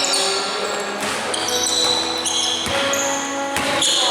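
Basketball game on a gym court: many short, high sneaker squeaks on the hardwood floor, with a ball bouncing in a few sharp thumps.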